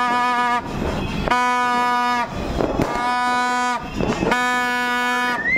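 A horn sounding in repeated long blasts, about one second each with short gaps between, on one buzzy note that sags slightly in pitch as each blast ends.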